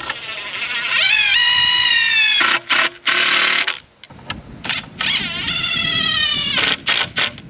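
A machine motor whines twice, each time spinning up quickly, holding for a second or more with a slight fall in pitch, then stopping abruptly. Sharp metal clanks fall in between.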